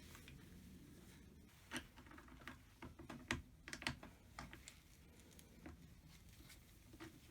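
Faint scattered clicks and light taps of hand tools and small parts being handled, with a few sharper knocks in the middle.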